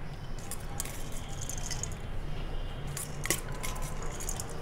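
A metal spoon scraping and clicking against a steel colander as boiled rice is scooped out and dropped into a bowl, with a few sharper clicks, over a steady low hum.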